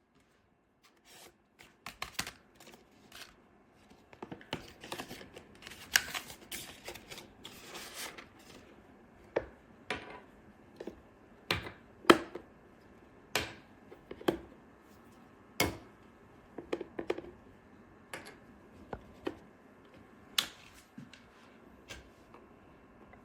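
A series of irregular sharp clicks and knocks, loosely spaced, with a denser cluster a few seconds in.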